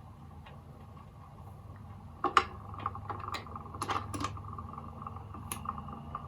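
Trav-ler record player's turntable mechanism after the record has ended: a steady motor hum, then from about two seconds in a run of irregular mechanical clicks and clacks from the tone arm and changer.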